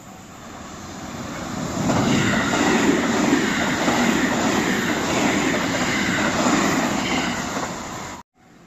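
Electric train passing a level crossing: the wheel and running noise builds over the first couple of seconds to a loud rush that holds steady, with the crossing bell ringing at the start. It cuts off abruptly near the end.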